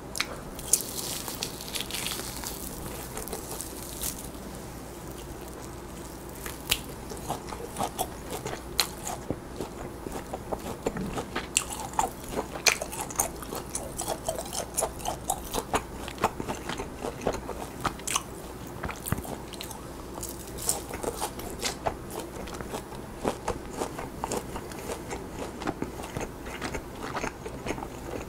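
A person chewing and biting roast lamb meat close to the microphone, with many small wet mouth clicks and occasional crunches.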